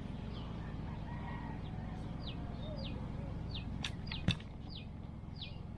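Birds calling: a run of short, high chirps, each falling in pitch, repeating every half second or so over a steady low background hum. Two sharp clicks come about four seconds in.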